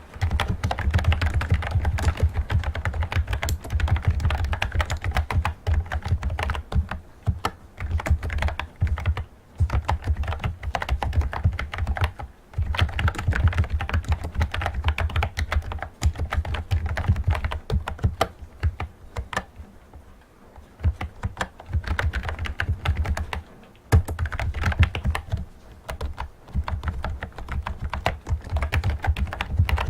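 Fast typing on a typewriter-style Bluetooth keyboard: a dense, continuous run of key clicks that breaks off now and then for a moment.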